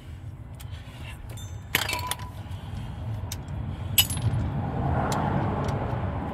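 Metal hand tools clinking: a socket and ratchet being handled, with sharp clicks about 2 s in and a louder ringing clink about 4 s in. A steady low rumble runs underneath and swells near the end.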